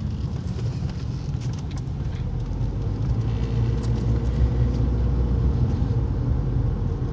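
Car's engine and tyre noise heard from inside the moving car: a steady low rumble with a faint steady hum.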